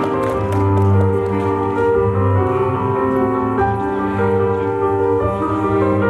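Instrumental performance music with slow, held notes that change about every second.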